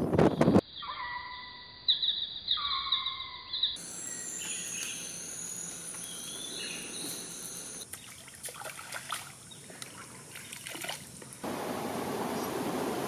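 Rainforest ambience in quick cuts, opening with a moment of wind on the microphone. Then birds sing in short, repeated falling whistled phrases, followed by a steady high insect drone with scattered bird calls and some light rustling. About eleven seconds in there is a steady rush of flowing water.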